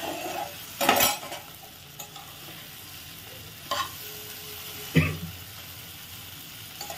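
Spatula stirring fried potatoes and spice masala in a pot over a gas flame, with a steady sizzle of frying as the masala is sautéed. A few sharp scrapes or knocks of the spatula against the pot, about one second in, near the middle, and loudest about five seconds in.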